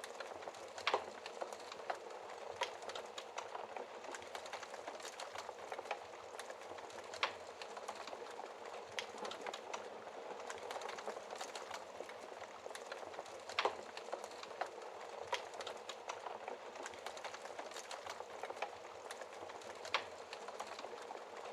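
Fireplace fire crackling steadily, with a few sharper, louder pops scattered through it.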